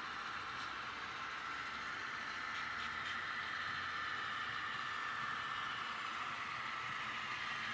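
HO scale model diesel locomotives running along the track, giving a steady mechanical whine that shifts slowly in pitch.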